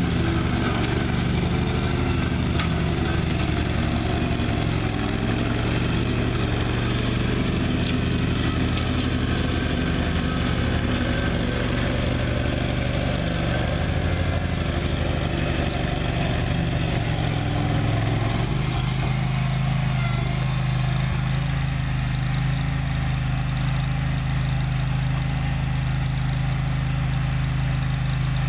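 Zero-turn riding mower engine running steadily while cutting long, month-old grass. Its note changes about two-thirds of the way through, then holds steady.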